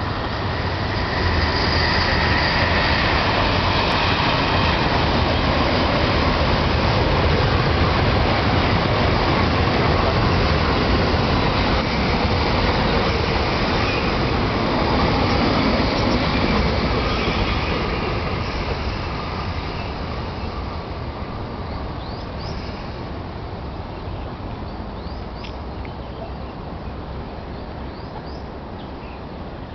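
MTR East Rail line MLR electric commuter train passing on the near track: a steady rumble of wheels on rail that builds about a second in, holds for some fifteen seconds, then fades away.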